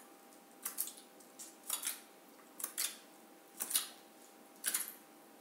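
A woman making five sharp tongue clicks, about one a second: the whole tongue pressed to the palate and pulled away with a sucking 'tsk', the 'sound for teeth' of a healing-sounds practice.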